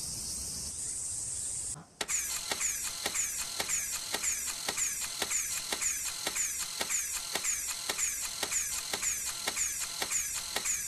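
Crickets chirring steadily, cut off abruptly about two seconds in. Then a rolling cart's squeaky wheel: an even click with a short falling squeak, about three times a second.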